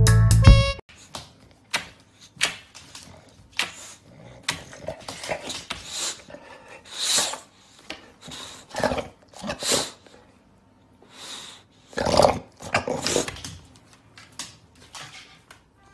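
English bulldog grunting and huffing in short, breathy bursts, about a dozen of them at uneven spacing, while it strains up at a kitchen counter for food. The loudest come about three-quarters through. Background music cuts off within the first second.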